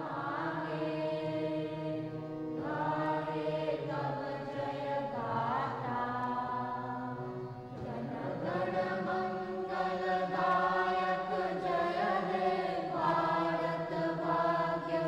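Chanting in long held notes that shift pitch every second or two, sung like a devotional chant.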